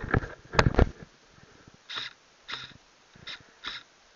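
Close rustling and knocks of kit and twigs in the first second, then four short sniffs close to the microphone.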